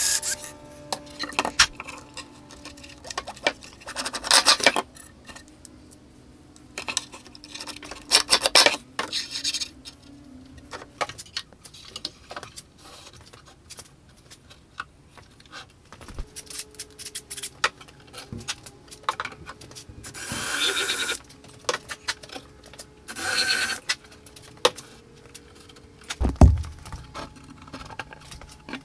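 Cordless drill/driver running in short bursts, driving screws to fix metal drawer slides. Later comes clicking and rattling as a wooden drawer is worked in and out on its metal slides, with one deep thump near the end.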